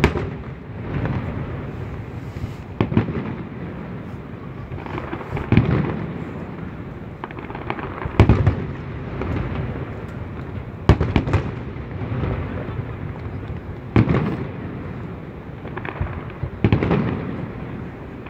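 Aerial fireworks shells bursting in a steady sequence, a sharp bang about every three seconds, each trailing off in a rumbling echo.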